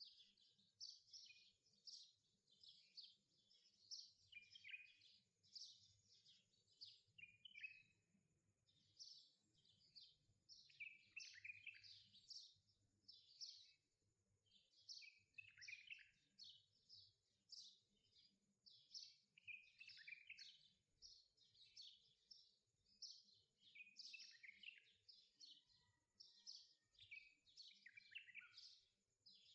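Chicken breast pieces frying in melted butter in a nonstick pan: a faint, rapid, irregular high-pitched sizzling crackle.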